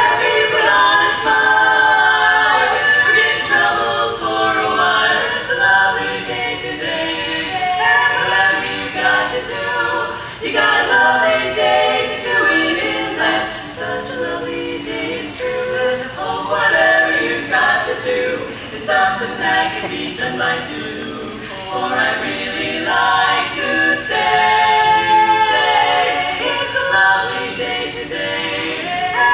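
A women's barbershop quartet singing a cappella in four-part close harmony.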